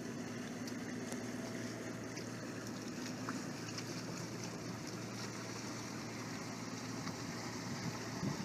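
Inboard diesel engine of a 36-foot Albin trawler yacht running steadily at slow speed as the boat motors past, a continuous low hum over an even wash of sound.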